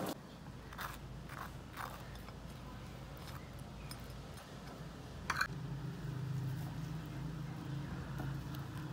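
Faint clicks and scrapes of a spoon on toast and a china plate while milk cream is spread, with a sharper clink about five seconds in. A faint low hum sets in after that.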